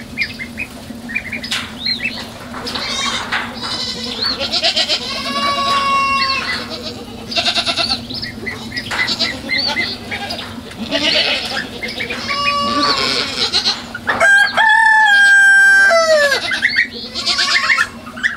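Farmyard animals calling: goats bleating and chickens clucking, with one long call held for about two seconds near the end. A steady low hum runs underneath.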